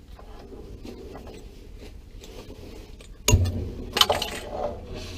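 A stuck steam-locomotive boiler tube being worked free: faint scraping rattles, then a heavy thud about three seconds in and a sharp knock about a second later.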